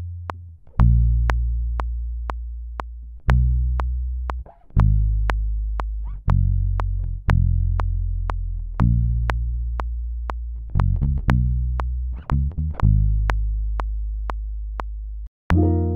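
Electric bass guitar played slowly: long low notes, each left to ring and fade before the next, with a quick run of short notes about twelve seconds in. A steady click sounds about twice a second.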